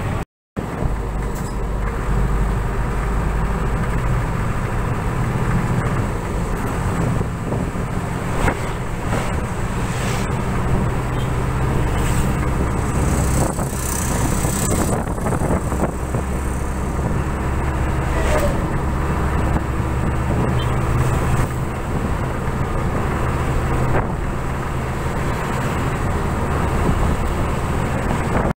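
Engine and road noise inside a moving bus: a steady, loud drone with a low engine hum. It drops out for a moment just after the start.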